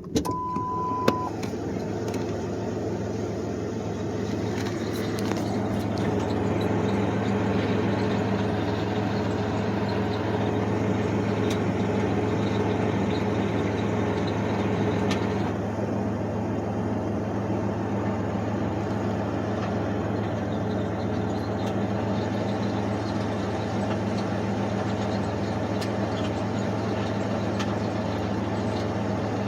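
Manual-transmission car idling with the clutch pedal pushed in, a steady whirring noise over the engine hum from a failing clutch throwout bearing, only some 5,000 miles old. A short beep sounds about a second in, and the higher part of the noise eases about halfway through.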